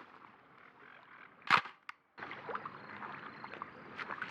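Shutter of a simple fixed-setting snapshot film camera firing with a single sharp click about a second and a half in, followed by a fainter click. The sound then cuts out briefly before a faint outdoor background returns.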